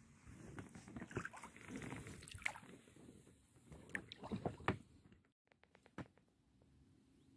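Irregular knocks and rubbing on an inflatable boat, with some water sounds, the loudest knocks coming about two and a half and four to five seconds in. The sound then cuts off abruptly, leaving a faint background with a few soft clicks.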